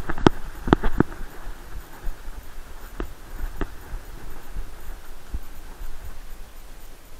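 Thumps and knocks of an action camera strapped to a running Groenendael Belgian Shepherd, with the dog's paws on dry leaf litter and a low rumble of movement. A quick cluster of sharp knocks in the first second, then two more about three seconds in.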